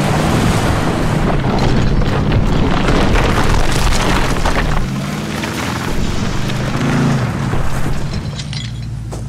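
Ford F-150's EcoBoost twin-turbo V6 pulling hard under load as the truck drags a heavy log through dirt, with gravel and dirt scraping. Dramatic music with low held notes runs underneath, easing off near the end.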